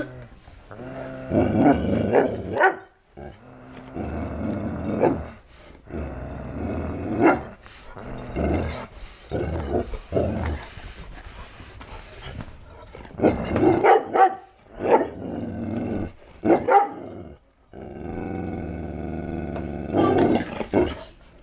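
Chocolate Labrador growling and grumbling in long stretches, with several sharp louder barks among them.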